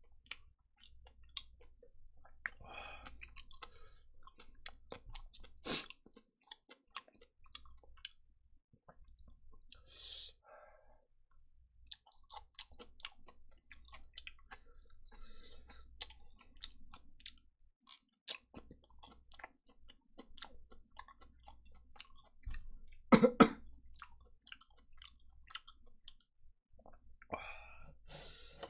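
Close-miked chewing of kimchi pork-belly stir-fry, with many small mouth clicks and metal chopsticks clinking against a stainless bowl. A loud cough about two-thirds of the way through.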